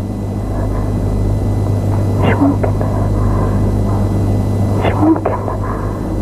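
A steady low rumble with a hum, slowly growing louder, with a few brief faint sounds over it about two and five seconds in.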